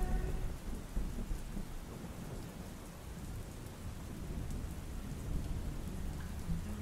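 Steady heavy rain with a low rumble of thunder, loudest in the first second or so. The tail of one song fades out just after the start, and the next song begins faintly near the end.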